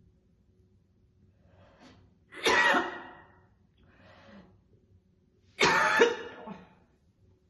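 A woman gives two loud, heavy coughs about three seconds apart, each after a quieter breath: a cigarette smoker's cough.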